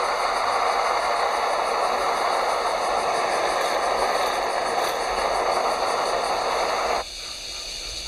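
US military M-1942 pressurized gasoline stove burner running with a steady hiss, which cuts off abruptly about seven seconds in as the needle is raised to shut off the flame.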